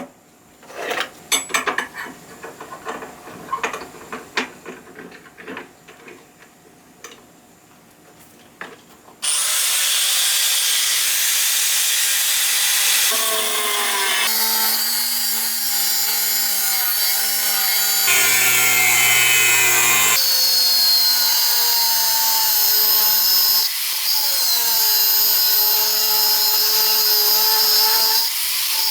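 Irregular hand scraping or filing strokes, then from about nine seconds in a power tool runs loudly and steadily with a high whine whose pitch shifts, breaking off and changing abruptly several times.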